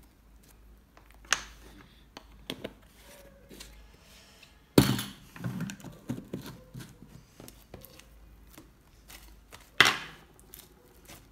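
Handling noises on a wooden tabletop: scattered light clicks and taps of a metal spoon and paint pots, with two much louder knocks about five and ten seconds in, and the slime being squished and stretched near the end.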